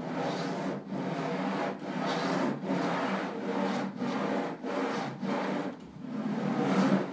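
A bundle of 480 pens bound together scraping across paper in repeated back-and-forth strokes, about one stroke every 0.7 seconds, with a longer stroke near the end.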